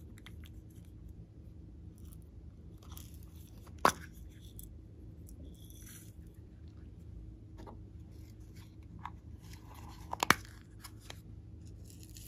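Small plastic containers of glitter being handled: a sharp click about four seconds in and a quick cluster of clicks about ten seconds in, with soft rustling and sprinkling as glitter and sequins are poured out.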